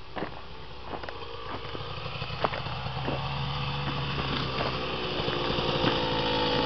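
Dirt bike engine running, growing steadily louder as the bike approaches.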